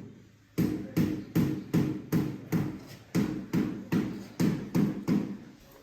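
Rapid, even hammering, about three blows a second, keeping up without a break.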